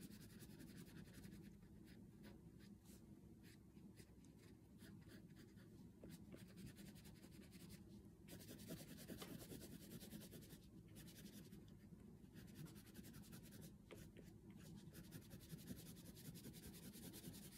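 Oil pastel rubbing on paper: a faint, steady run of short scratchy strokes as an area is coloured in.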